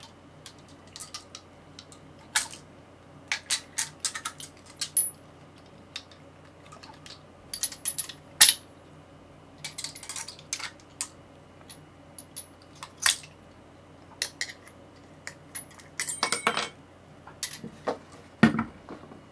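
Astro Products 3/8-inch drive chrome deep sockets clinking against each other and clicking on and off their metal holder rail as they are handled: irregular sharp metallic clinks, a quick rattle of several about sixteen seconds in, and a duller knock near the end.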